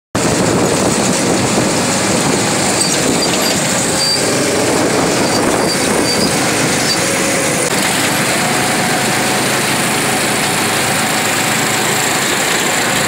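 Small go-kart engines running steadily as several karts drive around a track, heard from a moving kart with a dense, even rush of road and wind noise.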